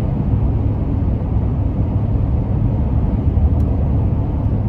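Steady low rumble of a moving vehicle, with no breaks or sudden events.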